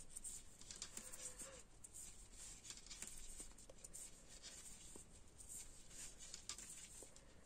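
Faint clicks of knitting needles and soft rustle of yarn as knit stitches are worked by hand, with scattered light ticks.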